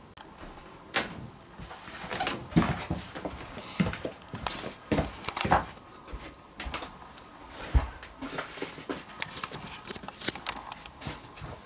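Footsteps on a steep wooden staircase: an uneven string of knocks and thuds on the treads, with a heavier thump about eight seconds in.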